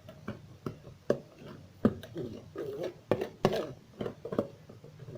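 A spoon stirring thick basbousa batter of semolina and yogurt in a bowl: wet squelching broken by irregular clicks and knocks of the spoon against the bowl.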